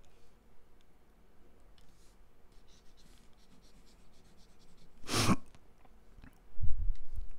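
Faint clicks and scratching from the presenter's desk, a short loud breath about five seconds in, then a few low bumps near the end.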